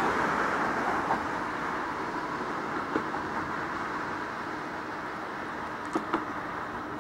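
Henschel diesel shunting locomotive moving a train of steel-slab wagons slowly over yard tracks: a steady running and rolling noise that slowly fades, with a few short sharp knocks.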